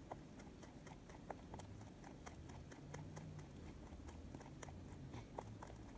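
A pet rabbit chewing food pellets: quick, irregular crunching clicks, several a second.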